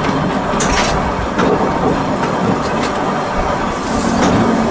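Volk's Electric Railway car running along its narrow-gauge track: a steady rumble of wheels on rail with a low hum, and sharp clicks about once a second as the wheels cross rail joints.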